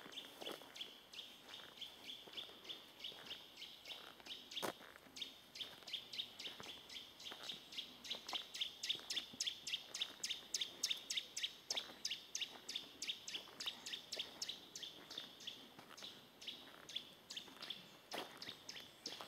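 A fast, even train of high chirps, about four or five a second, that grows louder through the middle and fades again near the end.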